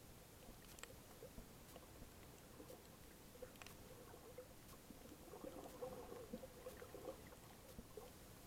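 Near silence underwater: a faint muffled water hush with scattered small clicks, and a slightly stronger low burble about two-thirds of the way through.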